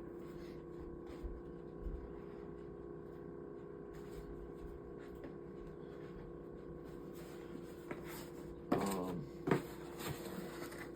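Room tone with a steady electrical hum and a few faint clicks, then a couple of brief, louder noises about nine seconds in.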